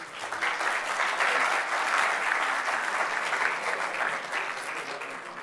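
Audience applauding, the clapping building over the first couple of seconds and then slowly dying away.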